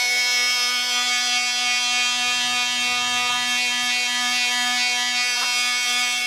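Corded oscillating multi-tool with a triangular sanding pad running at steady speed, sanding cured bonding epoxy off a carbon fiber panel: a steady buzzing hum that is switched off at the very end.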